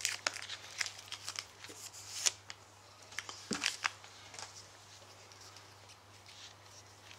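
A foil trading-card pack being torn open and the cards inside handled: a run of crinkles and sharp clicks for about four seconds, then only faint rustling.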